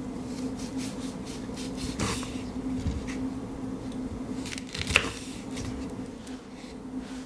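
Pocket-knife work on a prickly pear: short scrapes and clicks of the blade and fruit being handled, with a swish about two seconds in and a sharp click about five seconds in. A steady low hum runs underneath.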